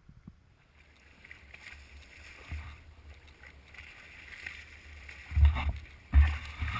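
Boat out at sea: a rushing noise of water and air builds after about a second of near silence, over a low rumble, with two heavy low thumps about five and six seconds in.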